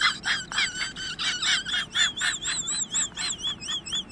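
Rapid, high-pitched chirping calls from a small animal, about four or five a second. About halfway through they turn into a wavering, whistle-like warble.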